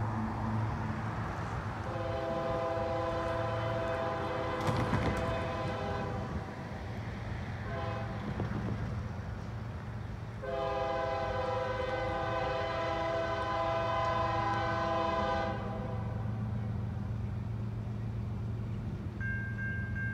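Diesel locomotive air horn sounding a chord of several notes, unseen, in a long blast, a short toot and another long blast, the pattern blown approaching a grade crossing. A steady low engine rumble runs under it, and a thinner high steady tone starts near the end.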